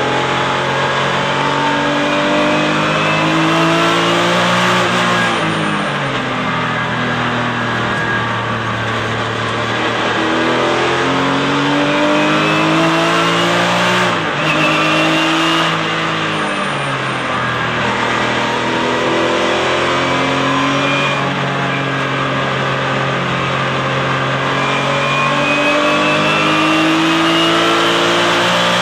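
Porsche 996 Cup car's flat-six engine heard from inside the cockpit at racing speed. Its pitch climbs and drops again several times as it accelerates through the gears and lifts for corners, with the biggest drops about five, fourteen and seventeen seconds in.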